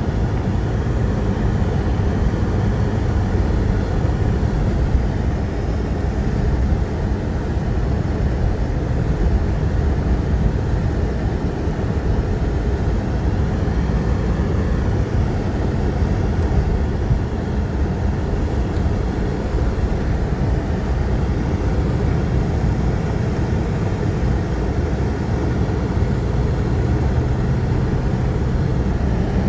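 Car cabin noise while driving on a snow-covered road: a steady low rumble of engine and tyres, with a low hum coming in near the end.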